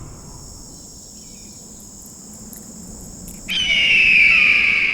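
Insects shrilling in a steady high-pitched chorus. About three and a half seconds in, a louder, lower insect buzz cuts in suddenly and runs on.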